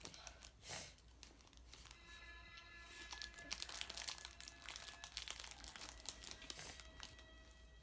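Clear plastic bread bag crinkling as it is handled and pulled open by hand. It is faint at first, with dense crackling from about three seconds in until near the end.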